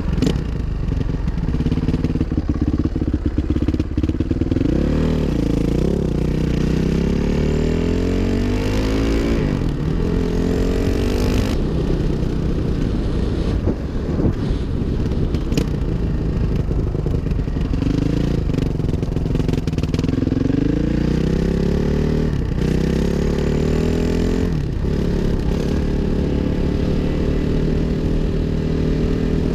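2005 Suzuki RM-Z 450's single-cylinder four-stroke engine running under way. Its pitch climbs through the revs and drops back several times as the bike accelerates and shifts.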